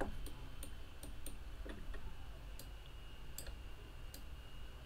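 Computer mouse clicking and its scroll wheel ticking: about eight sharp, irregularly spaced clicks over a faint low hum.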